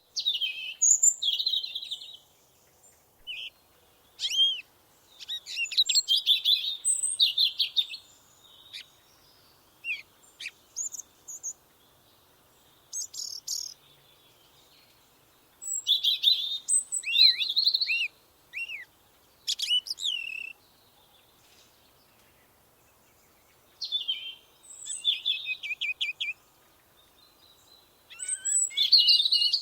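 Bird singing in short bursts of quick, high chirps and trills, each phrase lasting a second or a few seconds, with pauses of a few seconds between them.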